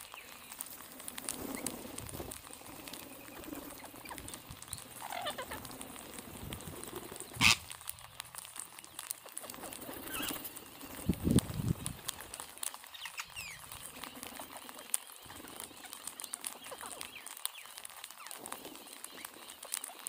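Rose-ringed parakeets feeding on scattered grain: a dense patter of small clicks from beaks picking and cracking seeds on the ground, with a few short calls and several louder sudden sounds, the strongest about halfway through.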